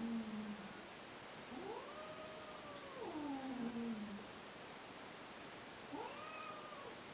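Domestic cat yowling in long drawn-out calls, each rising then sliding down into a low moan: one trailing off at the start, a long one about two seconds in, and a shorter one near the end.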